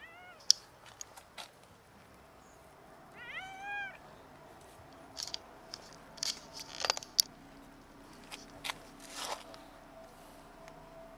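Cats meowing: a short meow at the start and a longer meow rising then falling in pitch a little over three seconds in. A sharp click about half a second in is the loudest sound, and scattered clicks and taps follow later.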